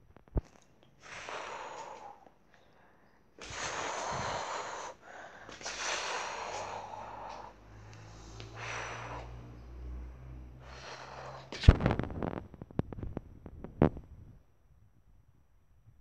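Breathy whooshing blown through the mouth in bursts of one to two seconds, with a low hum under them in the middle, then a run of sharp clicks and knocks near the end.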